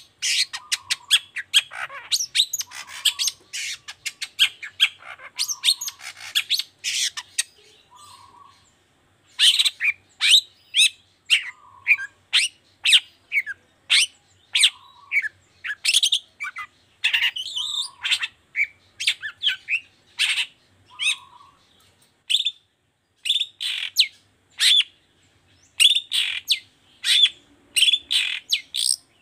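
Long-tailed shrike (cendet) singing: a fast run of short, sharp chirps and harsh squawky notes, repeated several times a second, with a couple of brief pauses.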